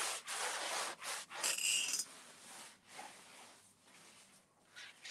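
Abrasive finishing pad scrubbing over a painted metal file cabinet's drawer front, wearing back a rust-effect finish. Several rubbing strokes come in the first two seconds, followed by fainter rubbing.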